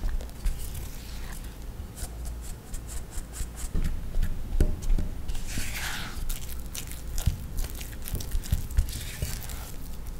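Silicone spatula stirring and scraping in a glass mixing bowl, with many small clicks and taps as it meets the glass. Twice comes a rustling scrape as the spatula cuts and folds dry flour into butter to make a cookie dough.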